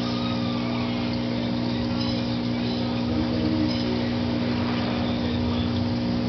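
Aquarium pump running, a steady hum over an even hiss.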